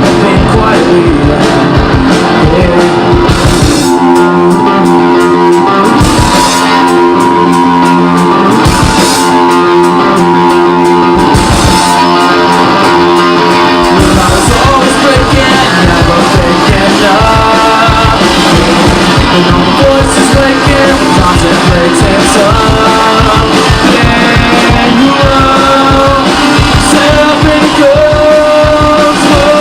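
Rock band playing live with guitars and drums. For a stretch near the start the bass and kick drum drop out, leaving guitar chords hammered in a repeated rhythm. The full band then comes back in under a held lead line that bends up and down in pitch.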